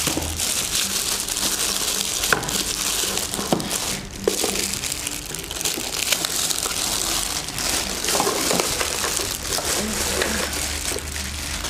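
Clear plastic wrapping bag crinkling and rustling continuously as it is worked off a coffee maker by hand, with a few light taps in among the rustle.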